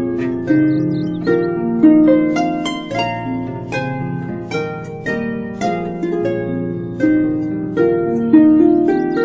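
Calm instrumental music: a slow melody of plucked harp notes, each ringing out and fading, over held low bass notes that change every few seconds.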